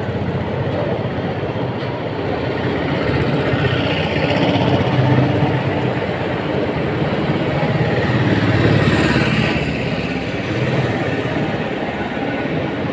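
Indian Railways passenger coaches rolling past as the train pulls out of the station: a steady rumble of wheels on the rails that swells and eases slightly.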